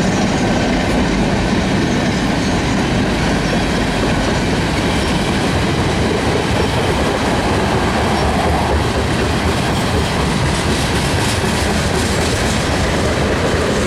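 Norfolk Southern freight train's cars rolling past, a loud, steady rumble of steel wheels on the rails.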